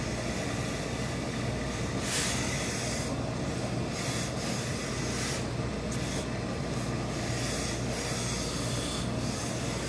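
Industrial steam iron on an overhead steam hose, pressing trousers and letting out several short hisses of steam, the strongest about two seconds in, over a steady low hum.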